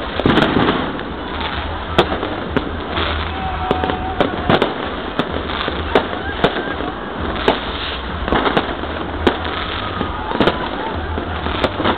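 Aerial fireworks going off: sharp bangs roughly once a second, irregularly spaced, over a continuous crackle and rumble.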